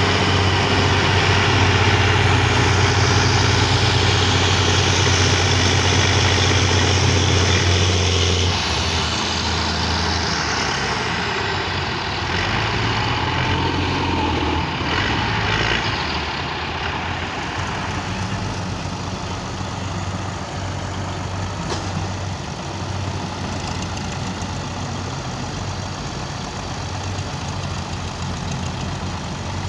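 Farm tractor diesel engines working hard, pulling on a tow line. The steady low engine drone drops off abruptly about eight seconds in, then runs on lower and rougher.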